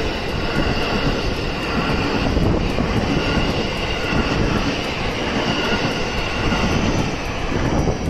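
A 12-car electric train passing close by at a level crossing, with a steady rumble of wheels on rail and running noise. The noise runs unbroken until the last cars go by.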